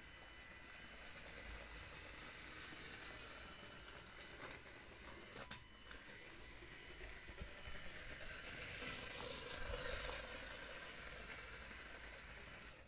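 LEGO train driven by an EV3 Mindstorms motor running along plastic LEGO track: a faint steady motor whir and wheel rattle, a little louder about eight to ten seconds in, with one sharp click about five and a half seconds in.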